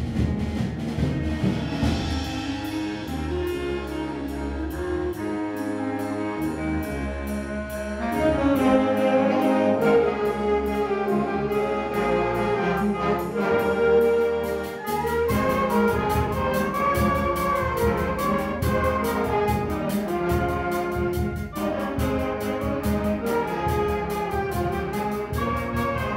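Orchestral music led by brass, playing sustained chords and melody lines; it swells louder about eight seconds in.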